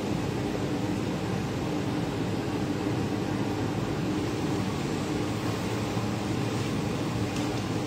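Kitchen extractor hood fan running steadily: a continuous rushing noise with a faint low hum.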